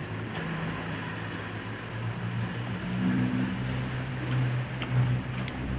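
Close-up eating sounds: chewing and fingers pulling apart sauce-coated squid, with a few small wet clicks over a steady background hiss.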